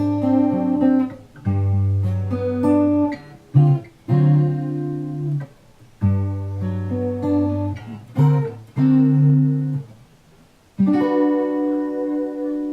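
Crafter GAE 15/N acoustic guitar being played: plucked melody notes over sustained bass notes, in phrases. After a short pause, a final chord is struck about eleven seconds in and left to ring.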